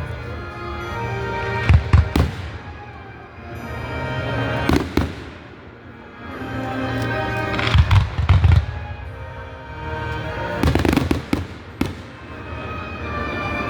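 Aerial fireworks bursting in quick groups of two or three sharp bangs, roughly every three seconds, each followed by a fizzing hiss. Music plays steadily underneath.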